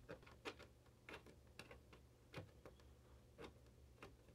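Faint, irregular small clicks and taps of hands working a cord into a slot in a 3D-printed plastic base, several scattered over a few seconds.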